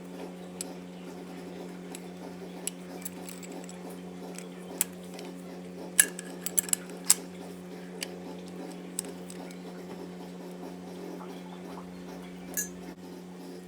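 Metal hand tools clinking and knocking: socket, extension and wrenches handled against the cylinder head while compressing a valve spring to seat the keepers, with a loud cluster of clinks about six to seven seconds in. A steady low hum runs underneath.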